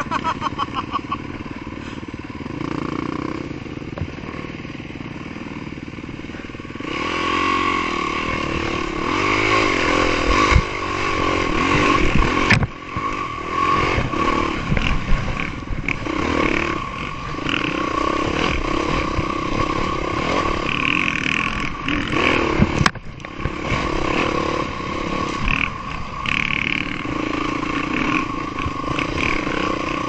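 Yamaha dirt bike engine, running low for the first several seconds, then revving up about seven seconds in and riding on with the revs rising and falling.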